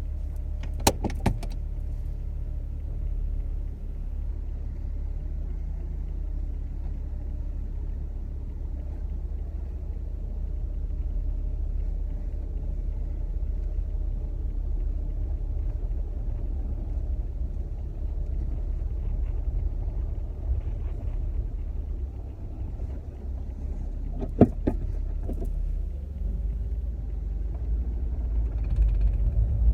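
Mk4 Jetta's 12-valve VR6 engine running with a steady low rumble that grows louder near the end. A few sharp clicks come about a second in and again at about twenty-four seconds.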